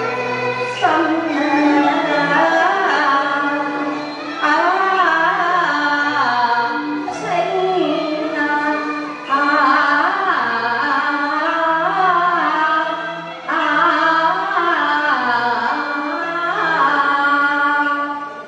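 Cantonese opera-style song (yuequ): a solo voice sings long, sliding phrases over a steady instrumental accompaniment, with short breaths between lines about 1, 4.5, 9 and 13.5 seconds in.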